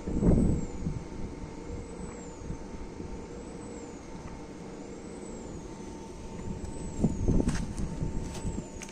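Wind turbine running: a steady hum under a faint high whine that rises and falls about every second and a quarter. Bursts of low rumble near the start and again about seven seconds in.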